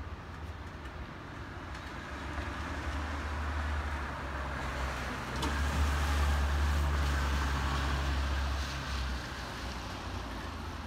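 A car driving past on a wet street, its tyres hissing on the wet asphalt over a low rumble, growing louder to a peak about six seconds in and then fading.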